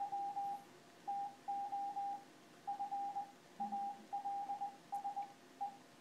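Computer-generated Morse code (CW) tone played through a speaker: one steady, mid-pitched tone keyed on and off in dots and dashes, sending plain-language text letter by letter.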